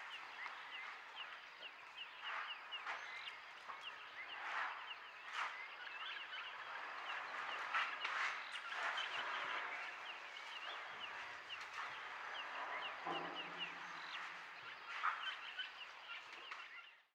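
Many small birds chirping and calling at once, a busy dawn chorus. A few sharper calls stand out, and a short, lower-pitched call comes about two-thirds of the way through.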